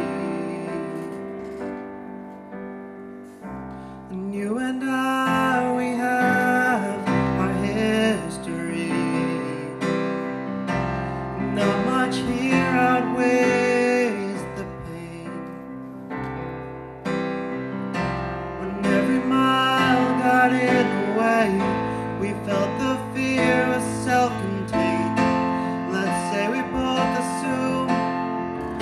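Electric keyboard playing a piano accompaniment, with a young man singing into a microphone over it from about four seconds in.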